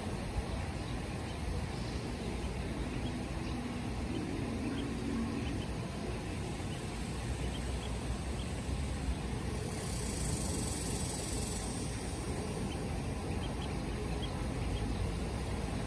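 Ducklings peeping faintly now and then over a steady low rumble.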